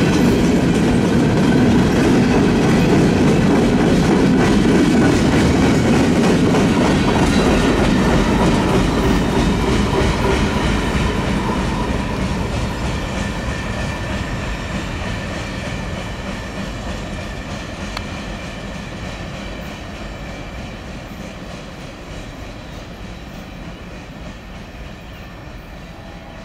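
Freight cars of a CN freight train rolling past on steel wheels. From about ten seconds in the sound fades steadily as the last car moves away down the track.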